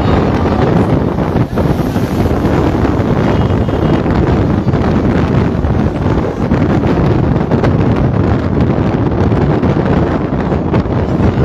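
Steady, loud wind rushing over the microphone of a phone held out of a moving vehicle at road speed, with the drone of traffic underneath.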